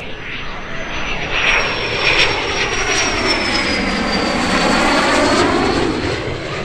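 Fighter jet engine passing: a loud rushing roar that swells to a peak in the middle and eases off near the end, with a high whine from the nozzle sliding steadily down in pitch as the jet goes by.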